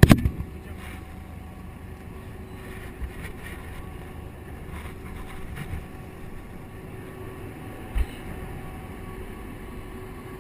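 Steady drone of a boat engine with wind noise, and one loud knock right at the start followed by a few fainter thumps later on.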